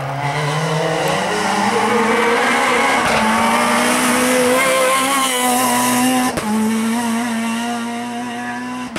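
Rally car engine at full throttle: its pitch climbs steadily for about five seconds, then holds high, with a brief break about six seconds in.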